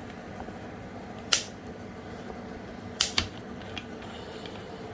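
Kitchen items being handled: three sharp clicks or knocks, one about a second in and two close together about three seconds in, over a faint steady hum.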